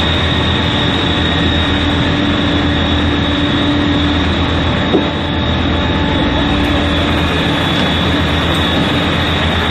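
Steady loud roar of firefighting equipment working a fire that is still not out, with a faint hum and a high steady whine running through it. There is one short knock about halfway through.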